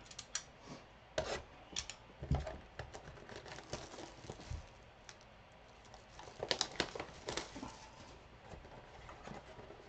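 Trading-card packs and cards being handled: faint crinkling and rustling of pack wrappers with scattered light clicks and taps, busiest a little past the middle.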